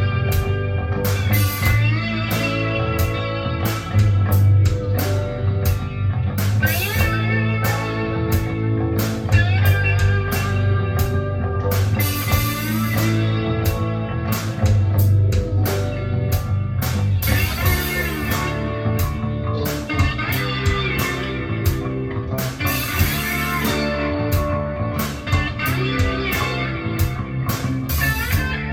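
Music with guitar to the fore, played through a Nobsound 6P1 vacuum-tube amplifier into ONKYO D-66RX bookshelf speakers and picked up in the room by a microphone.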